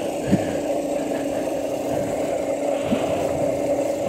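Electric motor of a homemade mini bike built from a Razor E300 scooter whining at a steady pitch while riding, under wind rushing over a helmet-mounted microphone. Two brief thumps, one just after the start and one near three seconds in.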